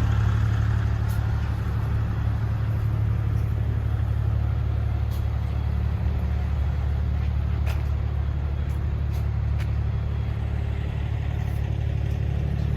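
An engine idling steadily: an even, low hum that does not change, with a few faint clicks over it.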